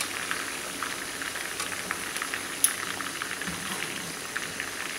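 Chicken pieces frying in oil in a frying pan: a steady sizzle with many small crackles and one louder pop about halfway through.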